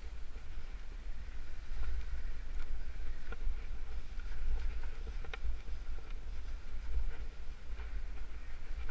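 Low, uneven rumble on a body-worn camera's microphone during a rappel, with a few faint clicks and scuffs of the rope, carabiner and shoes against the sandstone; the sharpest click comes about five seconds in.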